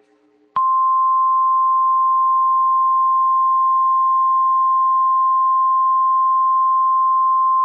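NOAA Weather Radio warning alarm tone: one steady, loud 1050 Hz tone that starts abruptly about half a second in and holds. It signals that a warning, here a severe thunderstorm warning, is about to be broadcast.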